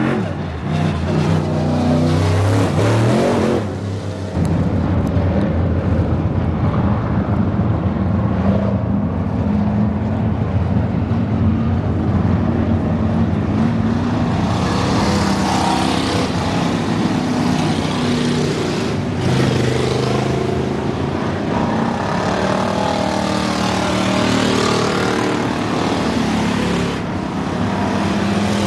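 Dirt-track race car engines running at speed during practice laps, rising and falling in pitch as cars come past.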